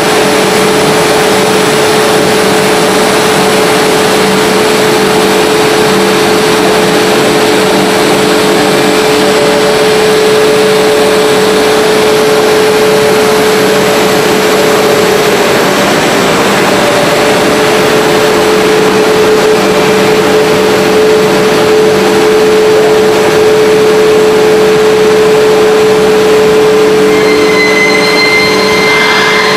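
HDPE pipe extrusion line machinery running: a loud, steady machine noise with a constant drone, and a few higher steady tones joining near the end.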